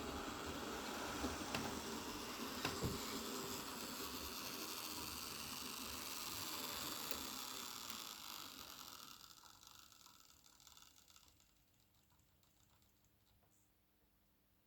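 Hornby Coronation Class model locomotive running on the track: a steady motor whirr and wheel rattle with a few sharp clicks, dying away over a few seconds near the end to near silence.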